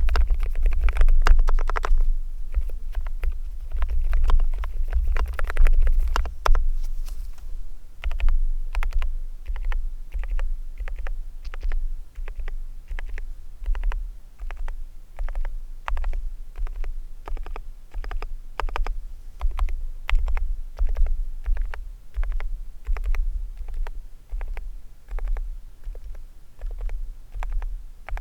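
Keystrokes on a hand-lubricated G-Clicker Swingkey WK101 keyboard with silent switches. Quick runs of typing come first, then single keys pressed at about two or three a second, each with a low thud under the click.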